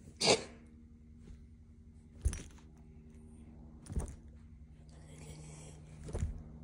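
A puppy pouncing and pawing at a laser dot on soft couch cushions: four sudden thumps about two seconds apart, the first the loudest, over a low steady room hum.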